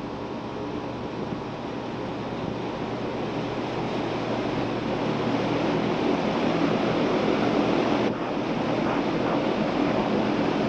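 Closet ventilation fan kicking on and spinning up over the running condenser's hum, its rushing air growing steadily louder, with a brief dip about eight seconds in. The fan is pulling hot air out of the closet, and the condenser pressure drops as it runs.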